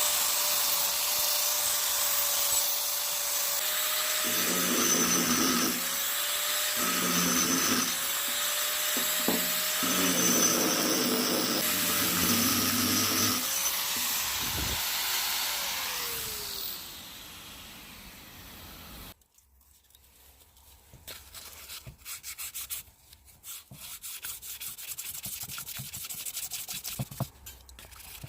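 A power tool runs with a steady whine while rust is ground and polished off a steel hammer head. Its pitch sags briefly several times as the metal is pressed against it, with a rough grinding noise each time. The tool then winds down and stops, and quiet hand rubbing and scraping follow.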